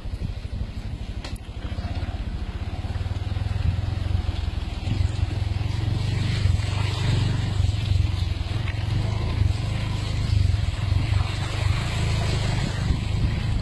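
Off-road 4x4 vehicle's engine running with a steady low rumble, getting louder about a second and a half in.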